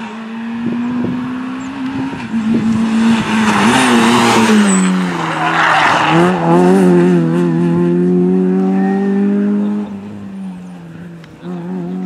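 Rally car engine at high revs, with tyre squeal and a loud rush of noise mid-way as it brakes for a bend. The engine note drops, then climbs steadily as the car accelerates away, and fades near the end.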